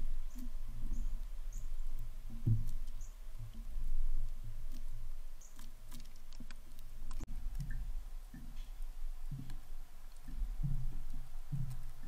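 Downy woodpecker pecking at a hanging log feeder: irregular soft, dull taps on the wood, with a few faint short high chip notes in the first few seconds.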